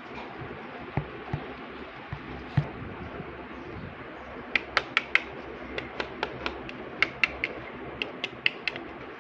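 Miniature toy kitchen pieces being handled: a few soft knocks, then a run of sharp, lightly ringing clicks and clinks, about two to four a second, over a steady hiss.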